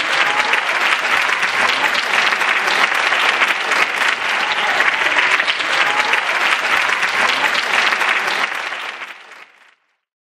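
Audience applauding steadily, then fading out to silence near the end.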